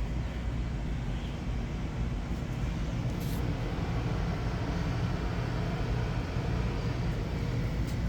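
Steady low rumble of background noise, with a faint click about three seconds in.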